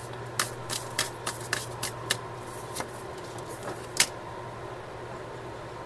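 Tarot cards being shuffled and handled: a run of irregular snaps and taps, the sharpest about four seconds in, then only a faint steady hum.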